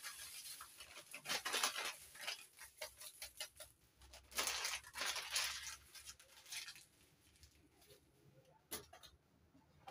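A paper packet crinkling and rustling as it is handled and shaken out, with a stretch of dry powder pouring into a plastic basin about four seconds in. A few small clicks follow near the end.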